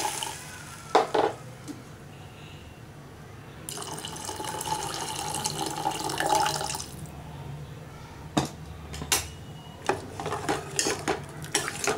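Tamarind water poured in a stream into a steel pot of fried peanuts and onions, splashing into the liquid, loudest from about four to seven seconds in. Over the last few seconds a steel ladle knocks and scrapes against the pot as the gravy is stirred.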